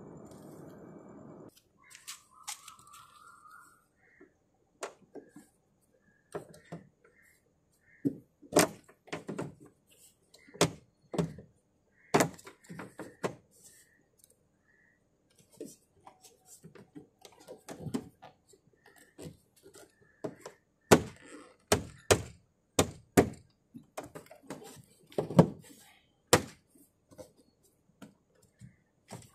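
Irregular knocks and clicks of a plastic cover and wiring harness being handled against the bare inner panel of an Audi A4 B8 rear door, as the cable is fed through its rubber grommet. The sharpest knocks come in the last third.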